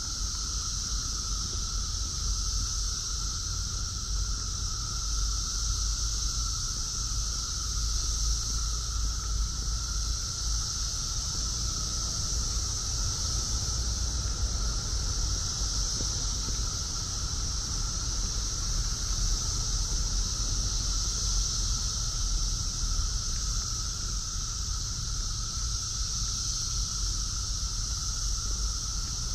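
Brood X periodical cicadas in a massed chorus, a steady high-pitched drone with a second, lower droning pitch beneath it, swelling and easing slightly but never stopping. A faint low rumble sits under it.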